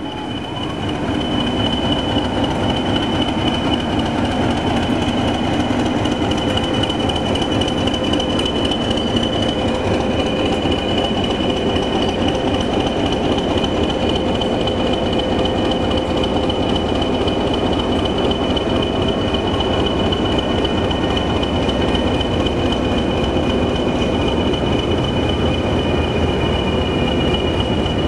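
Two Class 20 diesel locomotives running steadily with their train at a station platform: a low rumble with a steady high whine over it, building up in the first second or two and then holding level.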